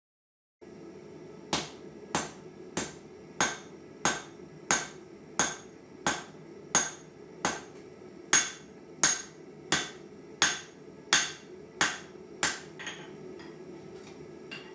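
Hand hammer striking the hot steel of a farrier's rasp on an anvil, a steady series of about seventeen ringing blows at roughly one and a half a second, as the rasp is forged into a knife blank. The blows stop near the end, leaving a few light taps over a steady low background rumble.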